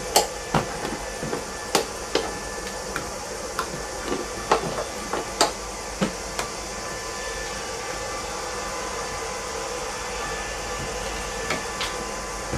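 Irregular sharp clicks and knocks as the air filter housing and its clips are unfastened and handled, over a steady background hum. The clicks thin out about halfway through, and a few more come near the end.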